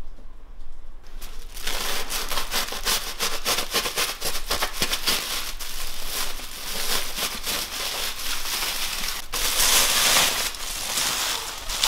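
Aluminium foil being torn and crinkled open by hand: a dense run of crisp crackles that starts about a second and a half in and grows louder near the end.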